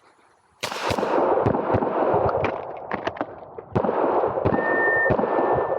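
Glock 26 9mm pistol firing a rapid string of shots, beginning about half a second in, in quick groups with short pauses between them as the shooter moves through the stage.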